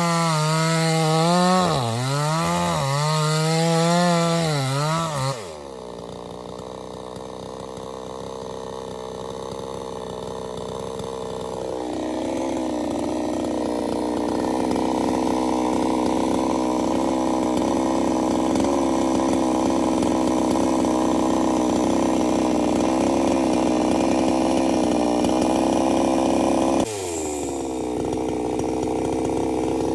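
Chainsaw engine running at high revs, its pitch wavering as it works. About five seconds in the pitch drops suddenly to a lower, steady running note that holds for most of the rest, with another abrupt dip and recovery near the end.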